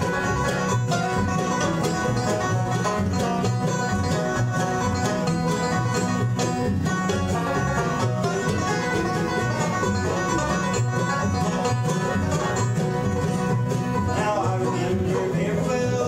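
Bluegrass band playing live: picked banjo, two acoustic guitars and mandolin over an upright bass keeping a steady beat.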